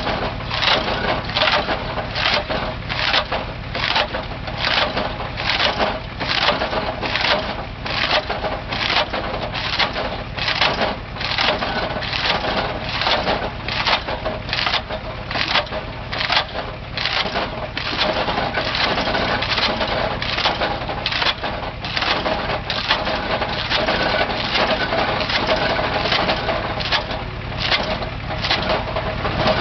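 A powered machine cutting through wood, with an even rhythm of about two strokes a second over a steady motor tone, and wood crunching and splintering.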